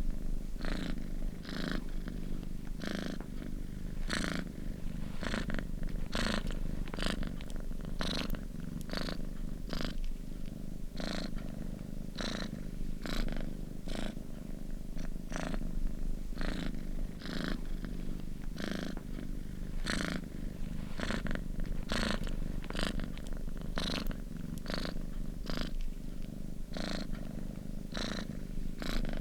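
Domestic cat purring steadily, a continuous low rumble with short breathy pulses about twice a second.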